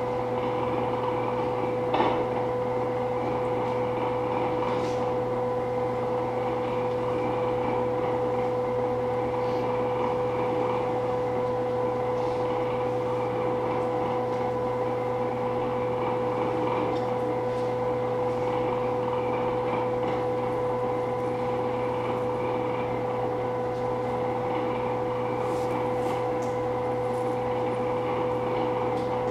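A steady electronic drone: a constant hum held on one pitch, with a fainter tone above it, over a hiss. There is a single click about two seconds in.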